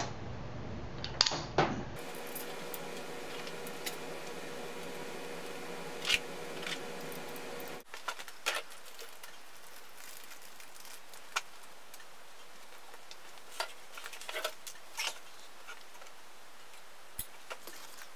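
Scattered light clicks and clinks of small metal parts and tools being picked up and set down on a workbench, over a steady background hum.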